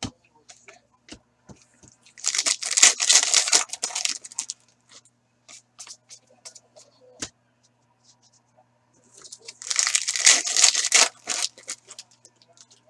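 Sports card pack wrappers being torn open by hand, twice, each tear lasting about two seconds, with small clicks and rustles of handling cards in between.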